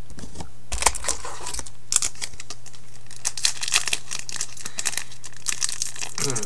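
A Pokémon booster pack's crinkly foil wrapper being handled and torn open: a run of sharp crinkling and tearing crackles, loudest about a second in and again near the end.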